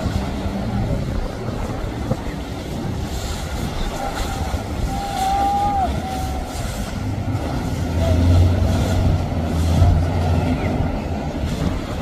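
Motorboat engine running under way, with the rush of water off the hull and wind; the low engine drone grows louder about eight seconds in.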